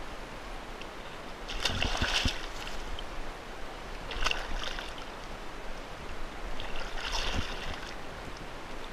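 Water splashing beside a kayak in three short bouts, about two, four and a half and seven seconds in, as a hooked black drum thrashes at the surface.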